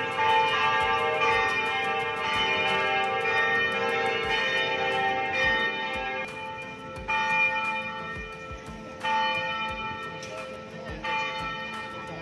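Church bells ringing: several bells of different pitch struck in turn, each ringing on, with fresh strikes about every two seconds in the second half.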